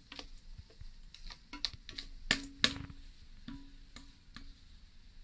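Silicone spatula scraping meringue out of a stainless steel mixing bowl, knocking against the metal in a string of clicks and taps. Several knocks leave the bowl briefly ringing, the loudest two about two and a half seconds in.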